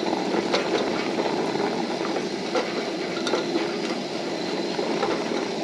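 A plastic spoon stirring couscous into just-boiled water in a small camp pot, making small scattered clicks and scrapes against the pot over the steady hiss of the lit propane camp-stove burner.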